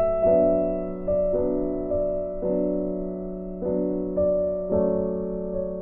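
Soft background piano music: slow notes and chords, a new one struck about every second and each fading away.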